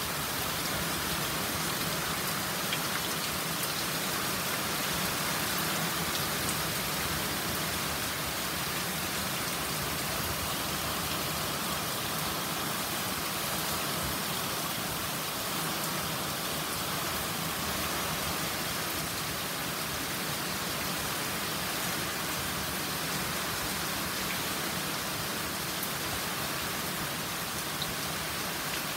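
Heavy rain falling steadily, a dense, even hiss that holds the same level throughout.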